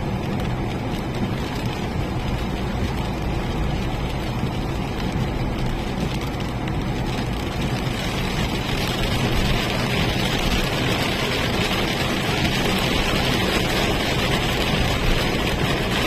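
Car driving on a wet road: a steady rumble of engine and tyres, with a hiss from the wet road that grows louder about halfway through.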